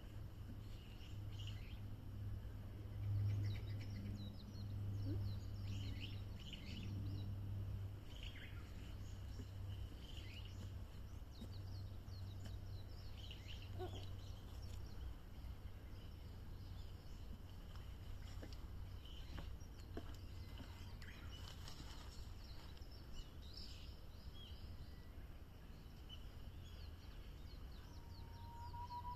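Wild birds giving scattered short chirps and calls over a steady low outdoor rumble. Near the end comes a held whistled note that sweeps sharply upward, like the opening of a Japanese bush warbler's song.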